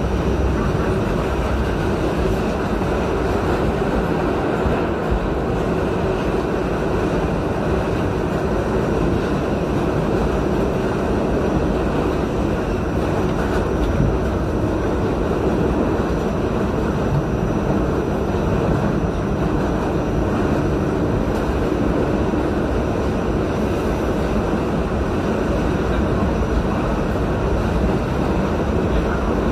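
R68A subway train running steadily at speed through a tunnel, an even rumble of wheels on rail heard from inside the rear car.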